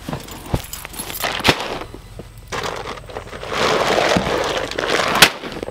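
Handling noise of rubber boots being pulled on, with a few sharp knocks, then a sack of deer corn set down in the grass, crinkling and rustling for a couple of seconds and ending with a sharp knock.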